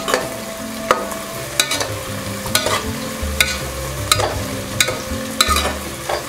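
Perforated steel skimmer ladle scraping and clinking against the aluminium pressure cooker, stirring sliced onions and curry leaves frying in hot oil and ghee, with a steady sizzle underneath. About eight strokes, roughly one every three-quarters of a second.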